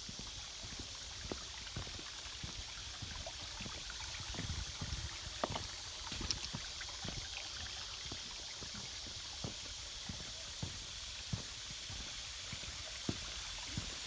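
Footsteps on bare rock ledges at a steady walking pace, roughly one to two steps a second, over a steady high hiss.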